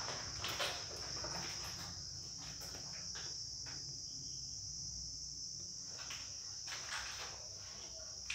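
Steady high-pitched insect chirring, like crickets, with a few faint knocks.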